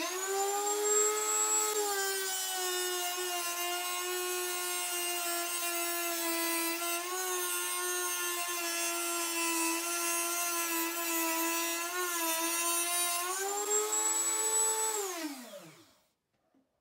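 Dremel rotary tool, mounted as a router, spinning up to a high steady whine, its pitch dipping slightly while the bit cuts a groove along a thin wooden strip. About thirteen seconds in the pitch rises again as the load comes off, then the motor is switched off and winds down.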